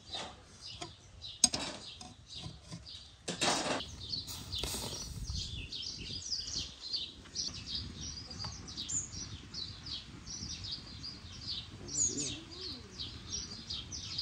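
Small birds chirping rapidly and continuously. A sharp knock comes about a second and a half in, and short rustling bursts around three and a half and five seconds in.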